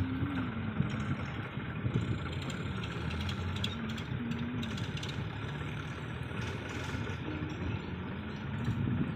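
Diesel farm tractor engine running steadily, heard from the driver's seat right beside its exhaust stack, its low note wavering slightly.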